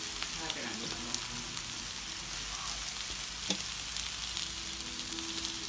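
Mala skewers (bacon-wrapped enoki, sausages, crab sticks) sizzling on an electric grill pan: a steady hiss with small crackles.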